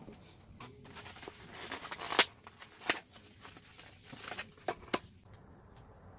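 Handling noises: rustling with a run of sharp clicks and knocks, the loudest about two seconds in, then a few lighter ones before it quiets.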